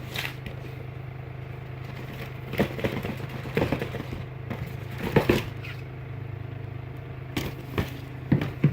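Shoebox packaging being handled: a few short rustles and scrapes about a second or so apart, over a steady low hum.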